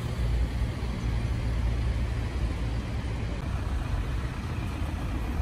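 Town-centre road traffic: a steady noise of vehicles with a low rumble.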